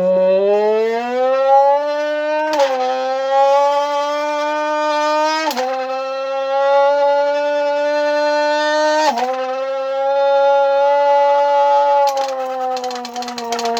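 Crushed aluminium Red Bull can blown through its torn slits like a reed, giving a loud buzzing tone that rises in pitch at first, imitating an F1 racing car. The tone breaks and dips briefly three times as the can is flicked, meant to sound like gear shifts, and its pitch sags near the end.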